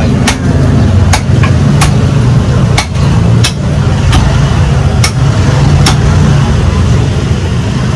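Butcher's cleaver chopping through bone-in buffalo feet, sharp knocks about once every 0.7 s, over a steady low rumble of a vehicle engine running.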